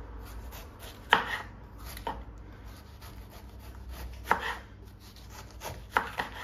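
Kitchen knife slicing through a head of young cabbage, the blade knocking on a wooden cutting board four times at uneven intervals, the first knock the loudest.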